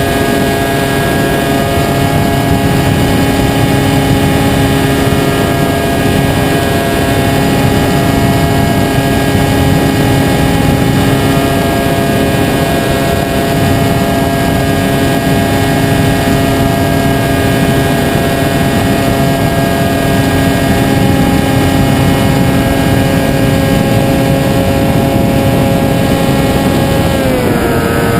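FPV model airplane's motor and propeller running steadily at cruise throttle, a constant buzzing whine over a rushing noise. Near the end the pitch slides down as the throttle is eased back.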